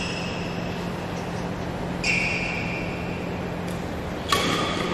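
Badminton rally in a large hall: court shoes squeak briefly on the court mat twice, and rackets strike the shuttlecock with a sharp hit about four seconds in, the loudest sound.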